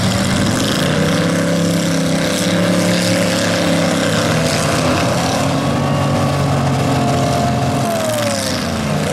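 Full-size demolition derby cars' V8 engines running and idling together; near the end one engine's pitch dips, then rises again as it is revved.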